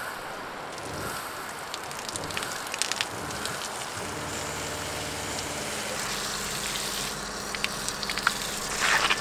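Water spraying from a truck camper's outdoor shower hand sprayer onto bare feet and gravel, a steady hiss. A low steady hum joins about four seconds in.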